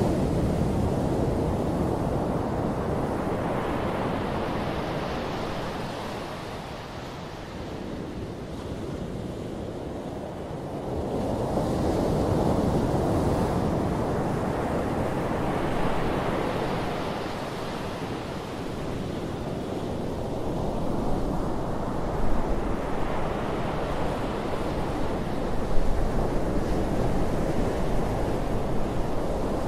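Small surf breaking and washing up a flat sandy beach, its hiss swelling and fading every several seconds. A steady low rumble of wind on the microphone runs underneath.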